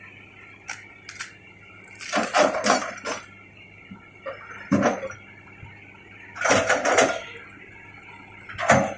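Crawler excavator's diesel engine running steadily, with several loud bursts of clanking and crunching as the bucket digs into and tears out roots and brush.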